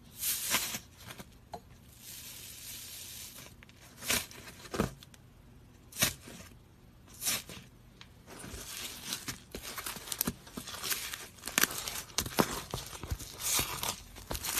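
Slime being squeezed and stretched by hand, giving a few separate sharp crackling pops, then a long run of dense crackling from about halfway through.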